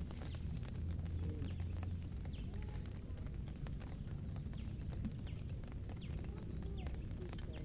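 Rain falling steadily: many irregular, quick raindrop taps on the water and on hard surfaces close by, over a low steady hum. A few short high chirps are heard here and there.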